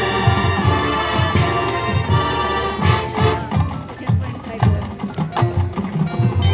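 High school marching band playing: brass holding chords over drums, with two cymbal crashes in the first half. From about three seconds in, the percussion takes over with a quick run of sharp strikes.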